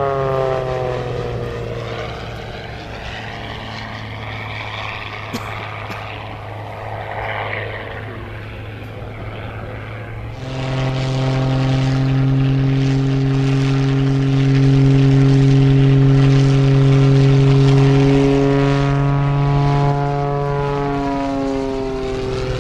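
Aerobatic propeller plane's piston engine flying passes: its pitch falls as it goes by at the start, the sound drops back for several seconds, then the engine comes in loud and steady about ten seconds in and falls in pitch again near the end as the plane passes.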